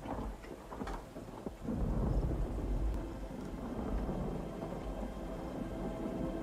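Thunder, with a few sharp cracks in the first second and then a long, low rolling rumble, over a steady hiss of rain.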